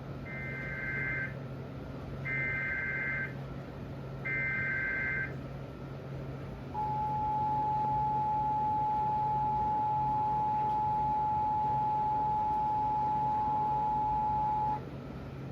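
Emergency Alert System alert tones: three one-second bursts of the SAME digital header's warbling data tones, then the two-tone EAS attention signal held for about eight seconds. This is the start of a severe thunderstorm warning. A steady low hum runs underneath.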